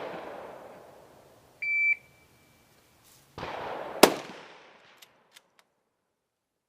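Shot timer giving one short high start beep, then about two seconds later a single sharp rifle shot that rings away, followed by a few faint clicks. A rush of noise fades out at the start.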